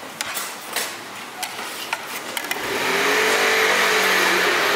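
A vehicle approaching: scattered light clicks, then a rumble with a low steady hum that swells about three seconds in.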